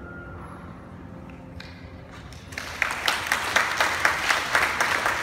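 The last note of the flute and piano dies away in the hall's echo, then after a short hush an audience breaks into applause about halfway through, and the applause goes on steadily.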